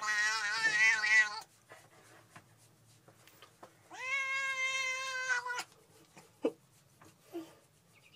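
Grey tabby cat yowling: a long call with a wavering pitch that ends about a second and a half in, then a second, steadier drawn-out yowl about four seconds in that lasts about a second and a half.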